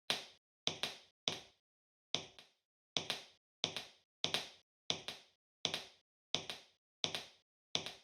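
Sharp snap-like step sound effects played by smart shoe insoles, one per footstep at a walking pace of about three every two seconds. Each hit cuts off quickly into silence. There is a short break about a second and a half in, followed by a quick double hit.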